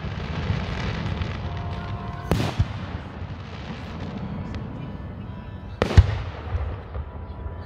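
Aerial firework shells bursting with sharp, echoing bangs: two close together a little over two seconds in and the loudest about six seconds in, over a steady low rumble.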